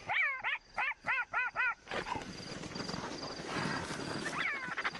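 Black-backed jackal yelping: about seven short rising-and-falling calls in quick succession over the first two seconds. Then a rough, noisy scramble as a leopard charges in, with two more yelps near the end.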